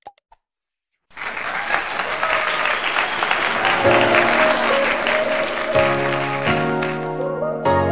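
A short click, then about a second in, applause from a crowd starts and runs for about six seconds before cutting off near the end. Soft music with held chords comes in under the applause partway through and carries on after it.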